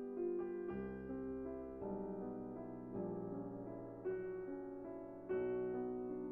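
Background piano music, soft sustained chords changing about every second or so.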